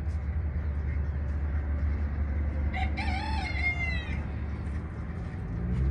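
A rooster crows once, about three seconds in: a single call of about a second that falls in pitch at its end, over a steady low rumble.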